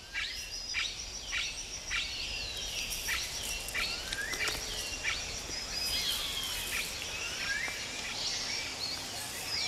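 Rainforest ambience: many short whistled bird calls, some sweeping down and some sliding up, one or two a second, over a steady high insect drone.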